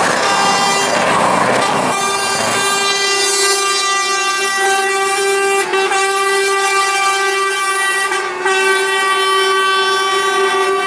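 A truck's air horn blowing one steady note, held for several seconds and broken briefly twice. Near the start it sits over the noise of a heavy truck passing close by.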